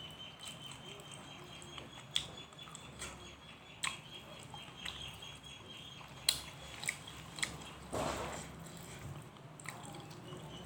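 Close-miked eating: chewing and biting with sharp, wet mouth clicks at irregular intervals, and a short breathy hiss about eight seconds in.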